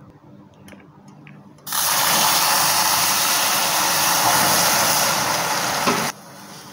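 Sugar syrup for aggala boiling hard in a metal wok, a loud steady sizzling hiss that starts abruptly about two seconds in and cuts off abruptly near the end. Before it there are only a few faint ticks.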